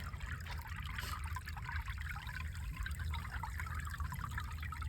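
Fine, irregular crackling of snow, steady throughout, over a low rumble of wind on the microphone.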